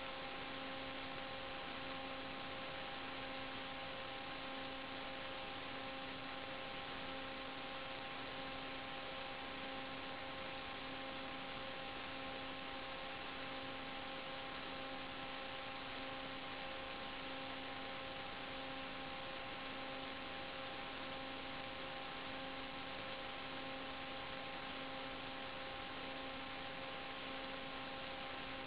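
Steady electronic hiss with a constant multi-tone hum, the noise of an FPV video link's audio channel; the quadcopter's motors are not running.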